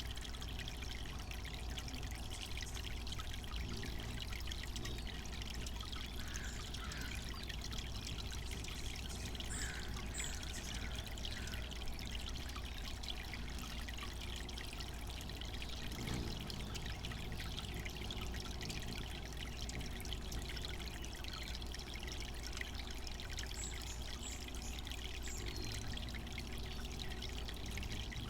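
Water from a garden bird-bath fountain pouring and trickling steadily.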